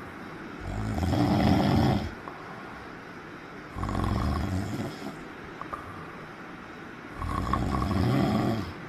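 Snoring: three long, loud snores about three seconds apart, each lasting about a second and a half, with quiet breathing gaps between.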